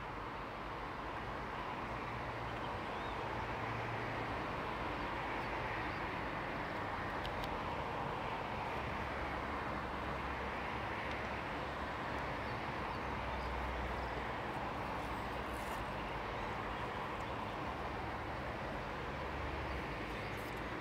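Steady outdoor background noise: an even hiss with a low rumble underneath, without any distinct bird calls.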